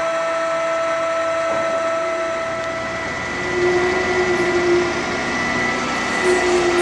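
OOYA RE2-1450D radial arm drill press running, with a steady machine whine at several pitches. About three and a half seconds in, a lower tone comes in and wavers; it drops out and returns near the end.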